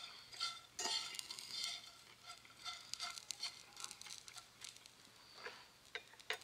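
Faint scrapes and light clicks of a fork and knife working through hash browns in a skillet and cutting steak on a plate, as scattered short scraping sounds.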